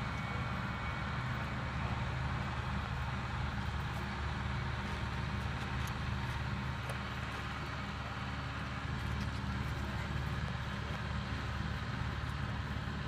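Diesel engine of an RNLI lifeboat launch tractor running steadily as it tows the lifeboat on its trailer across the beach: a low, even drone.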